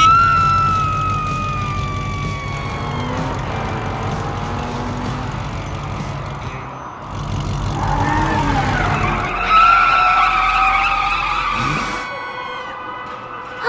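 Cartoon vehicle sound effects: an engine running under two long, slightly falling tyre squeals, one at the start and one about nine seconds in.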